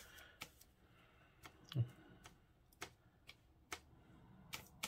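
Faint, irregular clicks and taps of a paintbrush against a plastic watercolor paint tray as paint is picked up and mixed.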